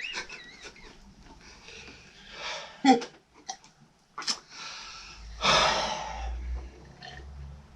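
A man hiccuping, with short, sharp catches of breath, then a long, loud wheezing breath about five and a half seconds in.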